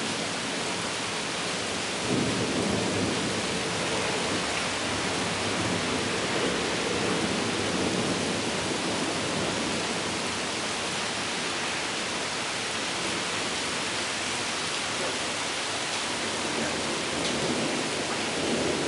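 Steady heavy rain falling in a severe thunderstorm, with thunder rumbling in about two seconds in and rolling on for several seconds, and another rumble near the end.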